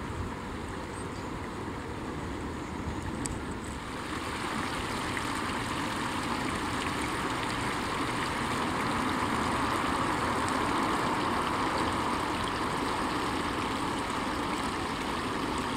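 Shallow stream water running over a low weir of wooden stakes, a steady rushing that grows louder about four seconds in.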